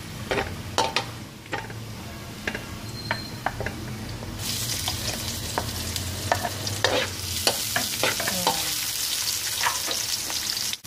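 Metal spoon scraping and clicking against a wok as minced garlic fries in oil. About four seconds in, chopped onion goes into the hot oil and a louder, steady sizzle starts, while the spoon keeps clicking on the pan.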